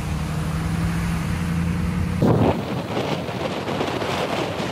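Car driving along a wet, flooded road: a steady low engine hum, then a little past two seconds a sudden loud rush of noise that carries on, wind and hiss of tyres on standing water.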